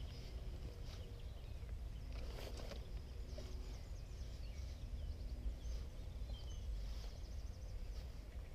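Wild birds singing, short chirps and a quick trill, over a steady low rumble, with a few faint knocks about two and a half seconds in.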